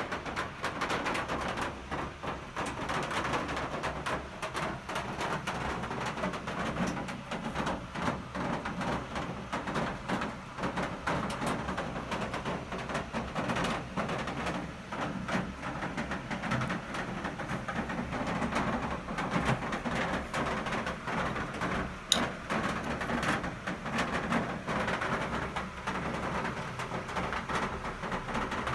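Rain falling, many drops tapping irregularly in a dense steady patter, with a low steady hum underneath and one sharp click about three quarters of the way through.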